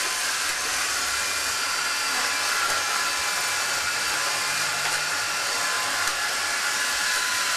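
iRobot Roomba 530 robot vacuum running: a steady whirring hiss from its motors and brushes, with a faint steady whine in it.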